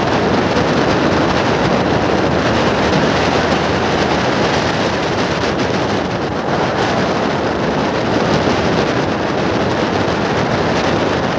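Steady rush of wind on the microphone mixed with the running noise of a vehicle moving at speed along the road, even and unbroken throughout.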